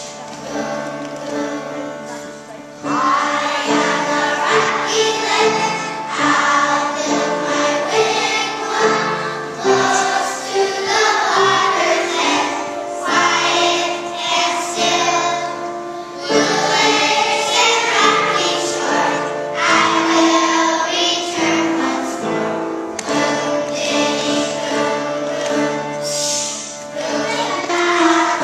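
A group of young children singing a song together over instrumental accompaniment. The voices come in about three seconds in, after a short instrumental lead-in.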